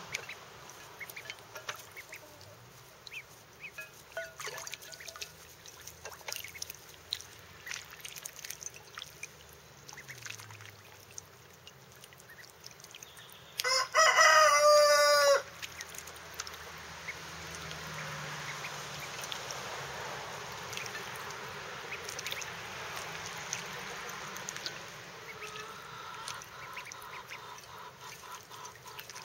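Runner ducklings splashing and dabbling in a shallow bowl of water, with small irregular splashes and patters. About halfway through a rooster crows once, loudly, for under two seconds, the loudest sound here.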